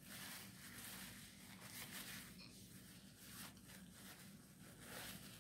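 Faint rustling and crinkling of a paper napkin being handled as hands are wiped with it.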